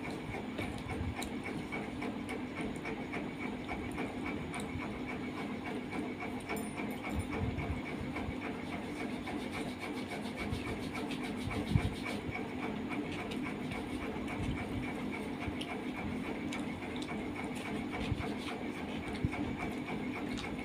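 Eating sounds: a hand mixing rice and curry on a steel plate, with soft rubbing and clicks and chewing, over a steady background hum. A single sharper knock sounds about twelve seconds in.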